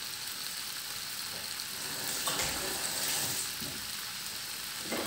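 Raw potato strips sizzling in hot sunflower oil and butter in an uncovered frying pan, frying rather than steaming. The sizzle is a steady hiss that turns briefly louder for about a second partway through.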